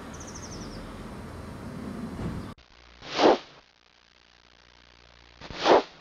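Outdoor garden background noise with a brief high, rapid bird trill near the start; the background cuts off abruptly about two and a half seconds in. Then two loud whooshes, each rising and falling over about half a second, some two and a half seconds apart.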